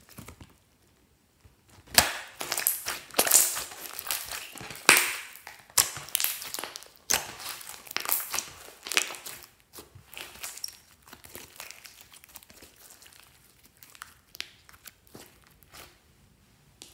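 Hands squeezing, kneading and stretching glossy slime, giving a quick run of wet crackles and clicks. It starts about two seconds in, is densest and loudest for the next several seconds, then thins to softer, sparser squishes.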